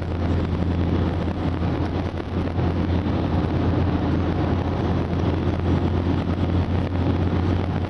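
Ford Transit 170 hp van at speed, heard from inside the cab: a steady low engine drone mixed with road and wind noise.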